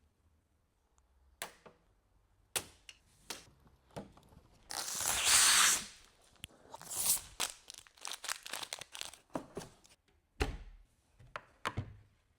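Packaging being torn open and handled: scattered knocks and crinkles, with one loud tear about five seconds in.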